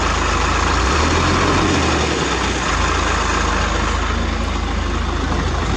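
Heavy diesel engine idling steadily close by; its low hum changes briefly between about one and two and a half seconds in.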